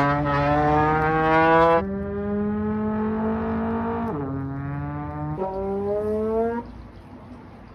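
A brassy, horn-like sound effect playing a series of long held notes, each sliding slightly upward in pitch. The pitch steps every one to two seconds, and the notes stop about six and a half seconds in.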